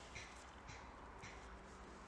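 Near silence, with three faint short ticks about half a second apart in the first half.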